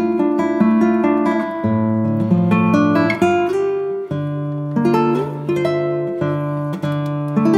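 Background music: acoustic guitar picking steady plucked notes.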